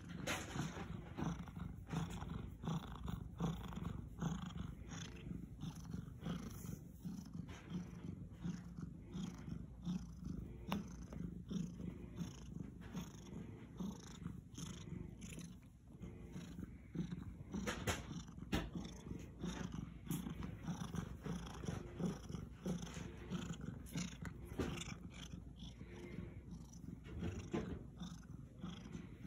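Domestic cat purring steadily while being scratched under the chin and on the cheeks.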